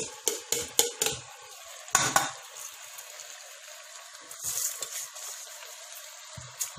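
Washed rice tipped into a pan of hot fried chicken masala and stirred in with a steel spoon: metal scraping and clinking against the pan, a louder rush about two seconds in, then a steady sizzle.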